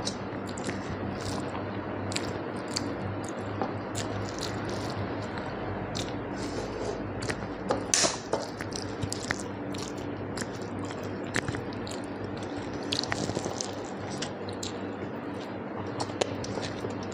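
Close-up eating sounds: wet chewing and smacking of a mouthful of rice and curry, with many small clicks. A louder burst comes about eight seconds in, over a steady low hum.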